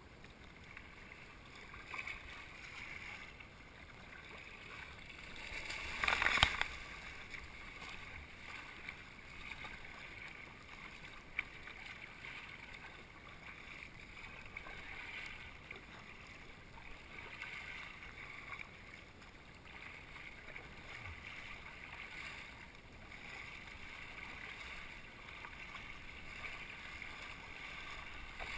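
Water splashing and lapping against a plastic sit-on-top kayak as it is paddled through choppy sea, swelling with the paddle strokes every couple of seconds. A louder splash comes about six seconds in.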